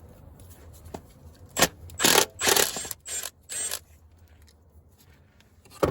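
Hand tool working a steel oil pan bolt on the bulldozer: a few short metallic scraping, ratcheting strokes about half a second apart, then one more at the end.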